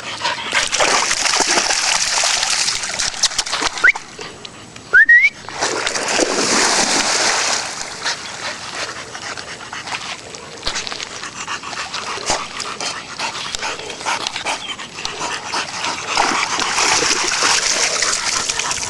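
A dog splashing through water, in uneven stretches of splashing with many small clicks. Two short rising squeaks come about four and five seconds in.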